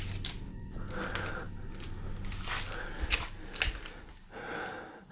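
Scattered clicks, scuffs and rustles of someone moving through a debris-strewn room, over a low hum that fades out a little before halfway.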